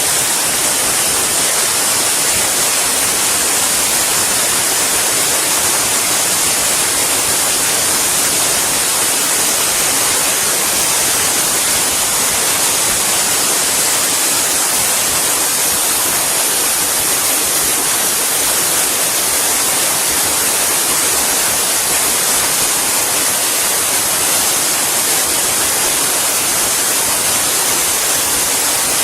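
Loud, steady hiss, brightest in the high frequencies, with no pitch, rhythm or change.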